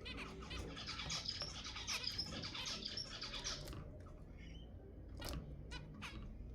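Zebra finches chattering, a dense run of rapid high-pitched calls for the first three and a half seconds, then a few separate sharp calls near the end over a low steady hum.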